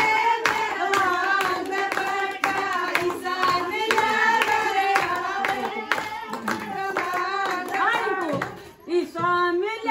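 Women singing a song together with steady hand-clapping keeping time, about two claps a second.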